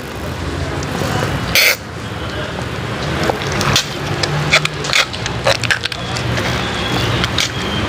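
Hands mixing chicken in a wet cream marinade in a stainless steel bowl: scattered short clicks and squelches, with one short loud noisy burst about one and a half seconds in, over a steady low hum.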